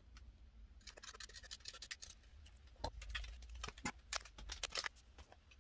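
Faint rustling and scattered small clicks of a plastic sleeve and paper temporary-tattoo sheets being handled.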